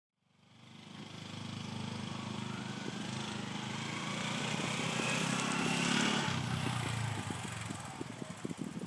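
Honda CT125 Hunter Cub's single-cylinder engine running under way, fading in, its note building for about six seconds and then dropping. It becomes uneven with separate knocks near the end.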